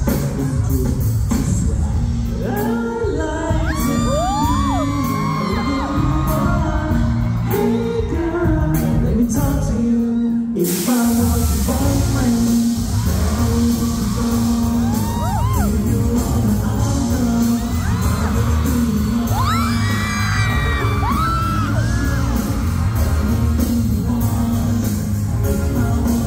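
Pop song played loud through a concert hall's PA, with a sung vocal over a steady beat and audience members screaming and cheering over it. About ten seconds in the bass drops out briefly under a loud wash of hiss, then the beat comes back in.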